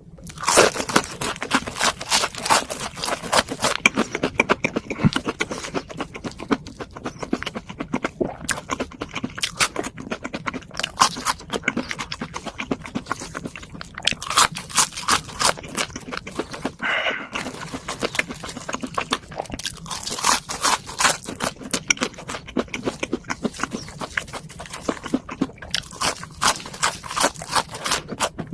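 Close-miked ASMR eating: a person chewing food with dense, quick crunches and wet smacks, in bursts that come and go throughout.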